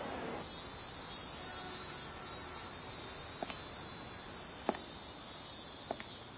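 High insect chirping over a soft outdoor hush, with sneaker footsteps on concrete steps, one about every second and a quarter from about three seconds in.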